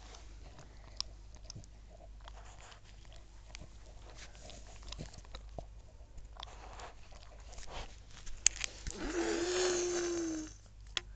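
A dog chewing close to the microphone: a run of small, soft clicks. Near the end comes a louder, noisier sound with a steady held tone lasting about a second and a half.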